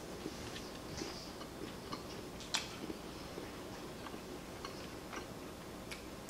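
Faint, irregular light clicks of a fork and knife against a dinner plate while cutting and eating, with one sharper click about two and a half seconds in.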